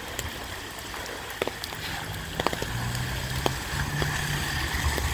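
Rain falling, with scattered drops tapping sharply, and a low vehicle engine hum that comes in about two seconds in.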